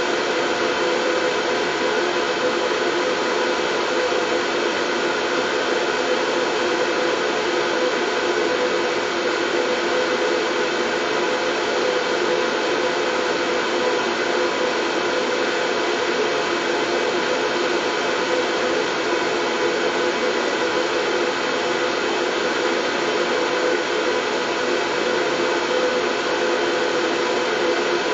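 Steady white-noise whoosh with a faint hum in it, unchanging in level, played as a sleep sound for colicky babies.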